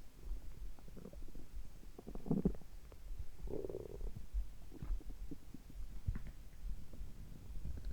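Human stomach and intestines gurgling in short bursts, the clearest about two and a half and three and a half seconds in, over a steady low heartbeat thump.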